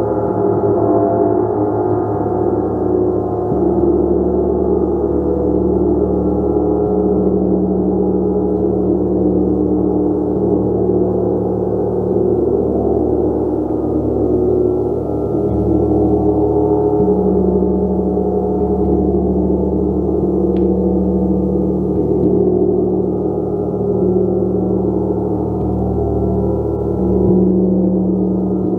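Gong played continuously: a dense, unbroken wash of many overlapping ringing tones that swells gently and never dies away.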